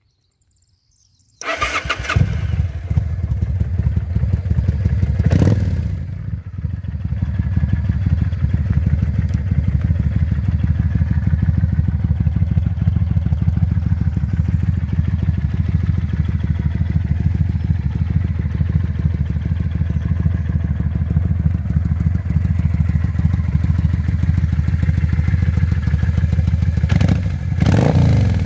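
Kawasaki Vulcan 800 Classic's V-twin engine is started on the electric starter about a second and a half in. It catches almost at once and settles into a steady idle. The engine note swells briefly about five seconds in and again near the end.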